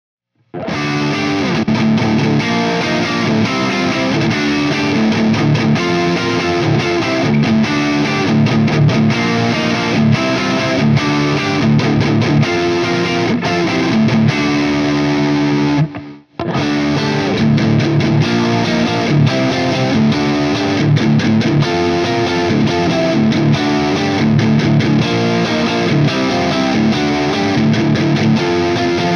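A 2010 Fender American Deluxe Stratocaster with N3 Noiseless pickups, played with overdrive through a Bogner Ecstasy amp and recorded direct with 4x12 Greenback cabinet impulse responses. The playing stops briefly a little past halfway, then starts again.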